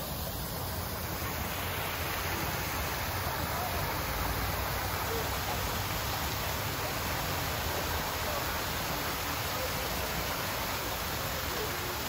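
Water pouring down a small stepped cascade of stone ledges and splashing into a rocky basin: a steady, even rush of falling water.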